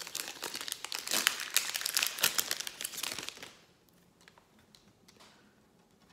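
Foil wrapper of a Pokémon booster pack crinkling and tearing as it is opened by hand, a dense crackle that stops about three and a half seconds in. After that only faint clicks are heard as the cards are handled.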